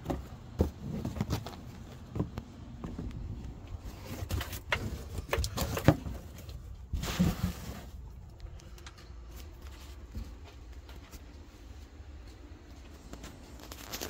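Irregular knocks, taps and rustling from handling, busiest in the first half and sparser after about eight seconds.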